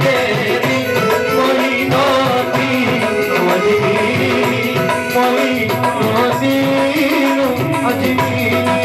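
Male voices singing a Sufi devotional song in qawwali style, accompanied by tabla and an electronic keyboard, with a steady drum rhythm.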